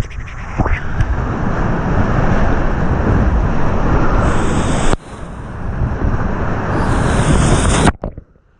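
Whitewater rapids at about 3,000 cfs rushing and crashing around a kayak, with waves and spray splashing over the camera's microphone. Near the end the sound suddenly drops to a muffled hush as the camera is dunked.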